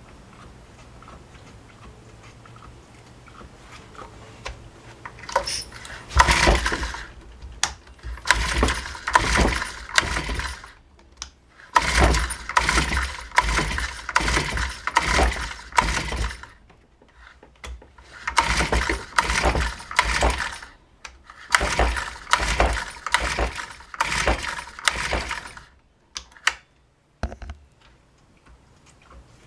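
Honda UMK-422 brush cutter's small four-stroke engine being pull-started over and over, in five runs of rapid cranking strokes separated by short pauses. It turns over without firing.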